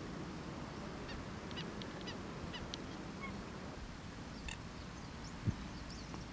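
Nene (Hawaiian geese) giving a series of short, faint calls over a steady low rumble, with one low thump about a second before the end.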